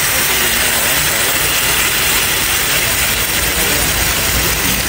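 Gravy sizzling on a hot sizzling plate under grilled meat, a steady hiss.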